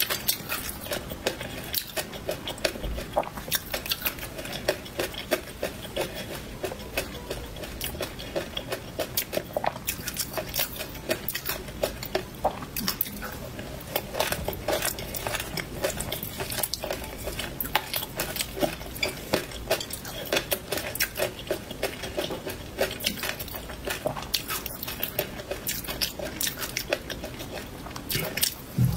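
Close-miked eating sounds: crunchy chewing of peanuts in chili sauce and pickled Laba garlic, with a spoon and spatula clinking and scraping on a ceramic plate. Dense sharp clicks and crackles throughout.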